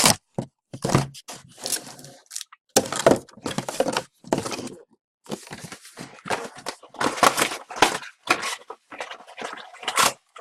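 A box of hockey trading card packs being opened by hand and its packs taken out: irregular tearing, crinkling and light knocks of wrapper, cardboard and packs.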